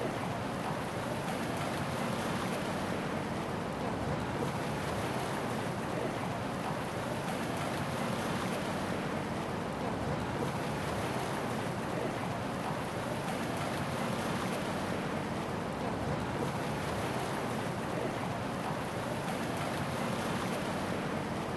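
Ambience of sea waves washing in slow, even swells, about one every six seconds, over a steady hum of city noise.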